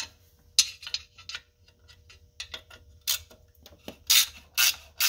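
Sharp metal clicks and clinks of a socket and extension on the 10 mm clutch pressure-plate bolts as they are unscrewed by hand. The clicks come irregularly, a cluster about half a second to a second and a half in, then more from about three seconds on.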